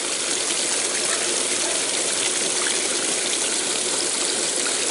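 Pond water pouring steadily out of the end of a PVC drain pipe, the pond draining down after the pipe's sleeve was pulled.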